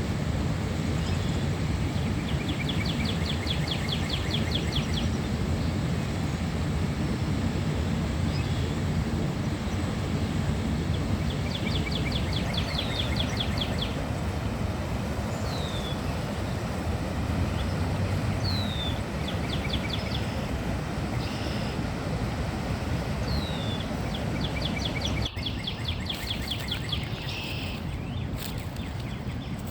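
Small songbirds singing: a fast trill of rapid repeated notes comes about four times, each lasting two to three seconds, with single short down-slurred whistles in between. Under the birds runs a steady low background rumble, louder than the song.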